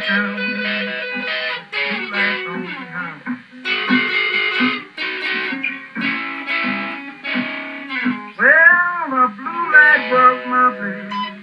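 Solo electric guitar playing a slow blues instrumental break between verses. It mixes single notes and chords, with many notes bent up in pitch and let back down.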